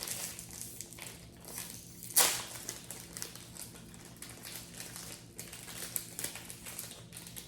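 Plastic snack wrapper crinkling and crackling in irregular bursts as it is opened, with one much louder crackle a little over two seconds in.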